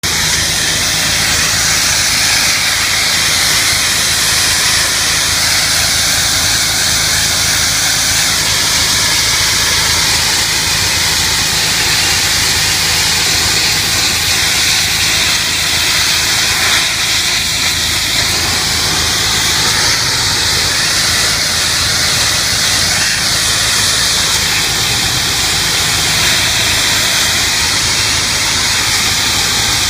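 Power washer spraying a high-pressure water jet to strip chewing gum from concrete: a steady, loud hiss over the even low hum of the machine's motor.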